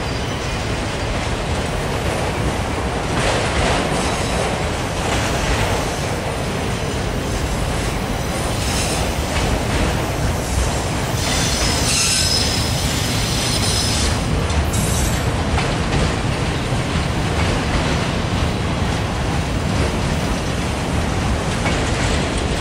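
Loaded autorack freight cars rolling past, steel wheels rumbling steadily on the rails. High-pitched wheel squeal comes and goes, loudest about eleven to thirteen seconds in.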